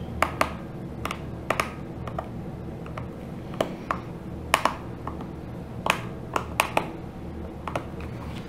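Small precision flathead screwdriver working at a stubborn screw in the plastic back of a TI-83 Plus graphing calculator: a dozen or so irregular sharp clicks and taps as the tip turns and catches in the screw head, over a steady low hum.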